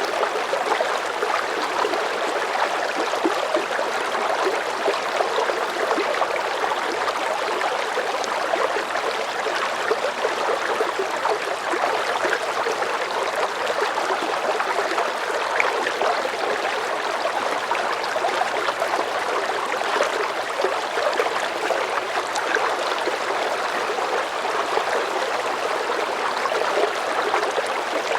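River current of medium strength flowing steadily, a continuous rushing and babbling of water.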